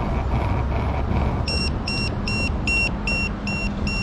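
Food-truck order pager beeping rapidly, about three high beeps a second, starting about a second and a half in: the signal that the order is ready. A steady low vehicle rumble runs underneath.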